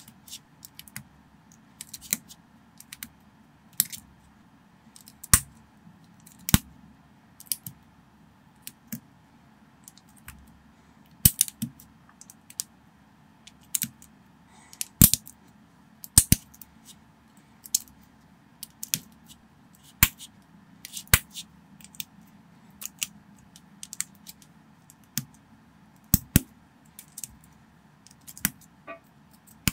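Plastic Lego bricks and plates clicking as they are pressed and snapped together by hand, in sharp single clicks at an uneven pace of about one or two a second, over a faint steady hum.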